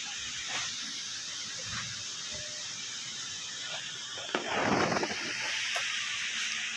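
Nitto Kohki MEDO LA-45C linear-piston air pump running, giving a steady airy hiss. A brief louder rustle comes about four and a half seconds in, and a low steady hum follows it.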